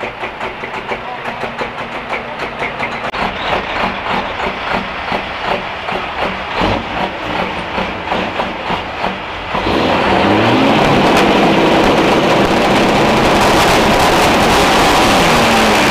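Big-rig truck engines running, with an uneven pulsing rhythm of several beats a second. About ten seconds in, this gives way suddenly to a louder, steady engine noise in which the pitch slides up and down.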